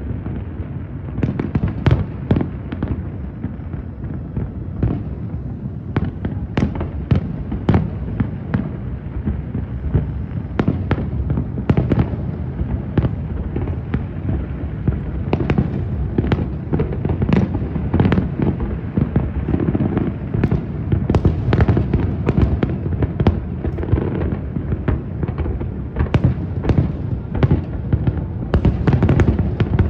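Fireworks display: aerial shells bursting in an irregular barrage of sharp bangs over a continuous low rumble of overlapping booms and echoes.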